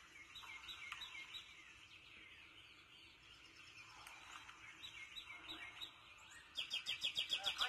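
Birds chirping: scattered faint short chirps, then, about two-thirds of the way in, a fast run of sharp repeated high chirps, roughly nine a second.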